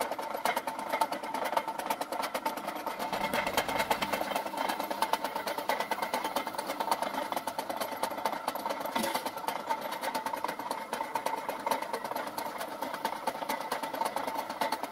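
Homemade belt-driven flywheel generator rig running: motor, pulleys and belt turning with a fast, even clatter over a steady whine.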